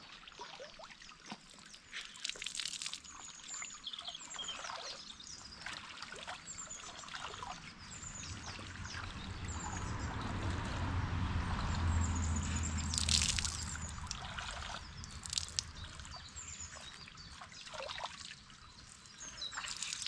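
Water splashing and trickling as people wash by hand in a shallow stream, scooping it up and pouring it back over their skin, with a louder stretch of pouring in the middle and a few sharper splashes.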